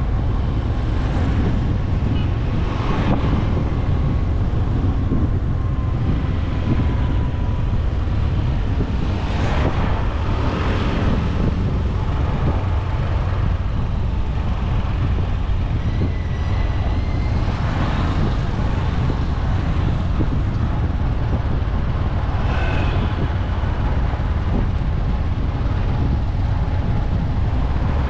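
Steady wind rumble on the microphone and road traffic noise from a moving vehicle among motorbikes and cars, swelling briefly a few times.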